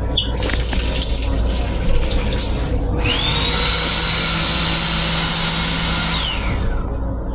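Hand dryer built into the sink unit of a Metro-North M7 railcar restroom: its motor spins up with a rising whine about three seconds in, blows with a steady high whine and hiss for about three seconds, then winds down near the end. Irregular rustling and knocks come before it, over a steady low rumble.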